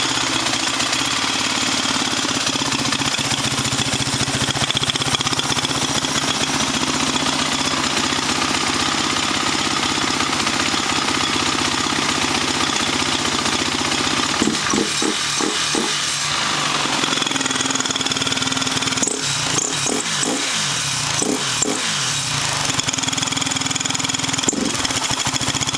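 Honda TRX 450R quad's single-cylinder four-stroke engine idling steadily, with a few brief wavers in the sound past the middle.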